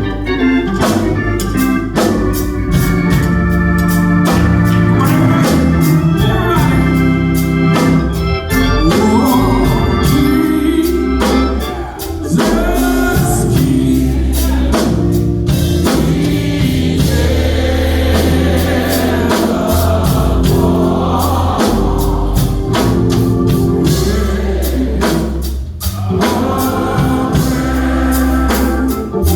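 Gospel music: an organ playing sustained chords, with voices singing over it.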